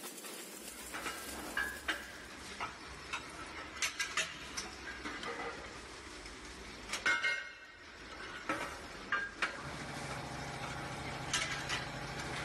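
Metal alloy ingots and casting-line machinery: scattered sharp metallic clinks and clanks over a low steady machine hum. A steadier motor hum joins about ten seconds in.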